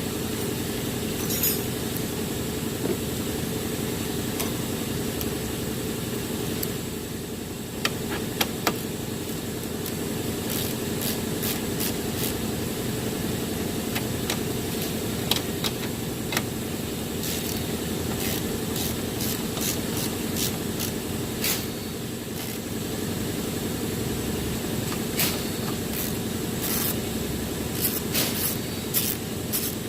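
Hand tools working the strut bolts, with scattered sharp metal clicks and clinks, more frequent toward the end, over a steady low hum.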